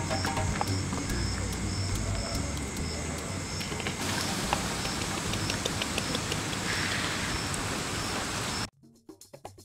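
Outdoor nature ambience: a high chirp repeating about twice a second over a low hum, giving way about four seconds in to a steady rain-like hiss. It cuts off sharply near the end, and faint percussive music begins.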